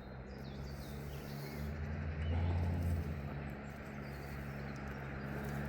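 A low engine hum, steady in pitch and slowly growing louder, with a few faint bird chirps near the start.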